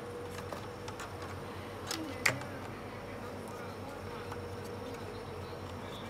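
Hands handling the opened plastic housing of a vacuum cleaner: a few light clicks and one sharp click a little over two seconds in, over a steady low hum.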